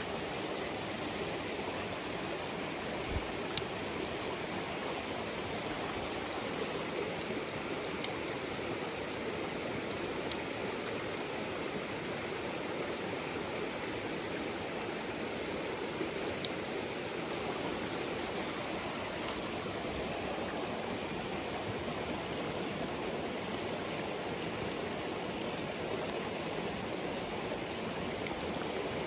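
Steady rush of a rocky mountain stream, with a few sharp clicks scattered through.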